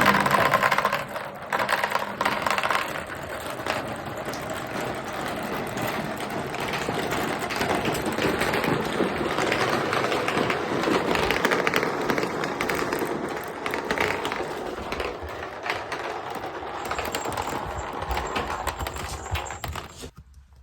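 Many marbles and balls rolling and clattering together through a handmade marble run: a dense, unbroken rattle of small clicks and knocks that cuts off suddenly near the end.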